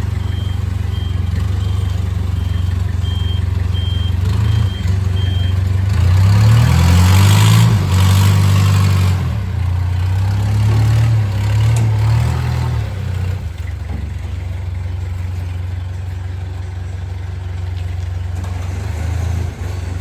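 A vehicle engine running steadily, with a reversing beeper sounding about twice a second for the first five seconds. About six seconds in the engine revs up under load for several seconds, then drops back to a steady run.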